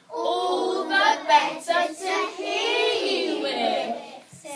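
A class of young children's voices singing a line of the story together in unison, with long held notes, pausing briefly near the end.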